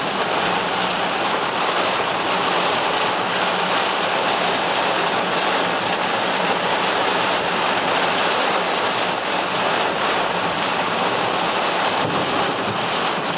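Heavy rain drumming on a moving car's roof and windshield, heard from inside the cabin as a loud, steady, dense hiss: a downpour heavy enough to cut visibility on the road.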